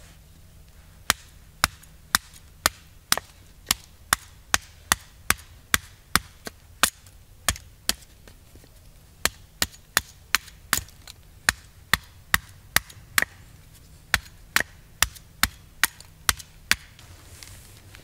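Hatchet chopping thin kindling sticks from a split log: sharp, quick strikes about two a second, in three runs with two short pauses between them.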